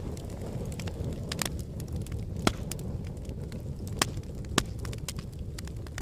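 Wood fire in a fire pit crackling, with a steady low rush of burning under scattered sharp pops. Three louder pops come a little before halfway and twice more about a second and a half later.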